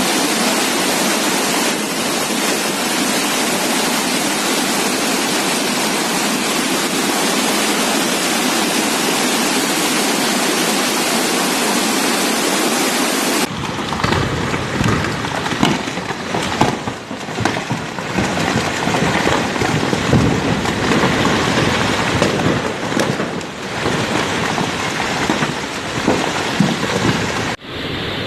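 Loud, steady rush of water, heard in two successive recordings: an even hiss for the first half, then a rougher, more uneven rushing with more low rumble after an abrupt change about halfway through.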